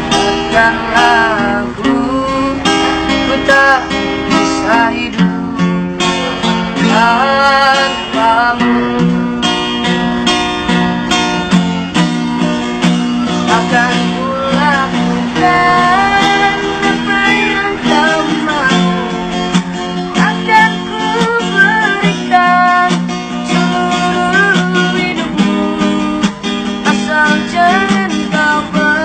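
A street busker singing a melodious song to a strummed acoustic guitar.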